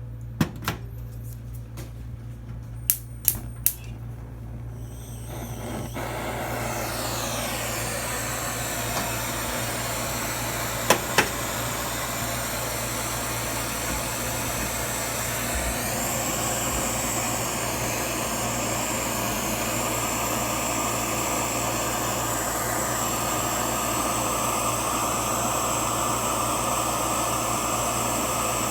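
A metal-melting burner or furnace blower starting up after a few sharp clicks, then running with a steady rushing noise and a high whine. Two sharp knocks come about eleven seconds in.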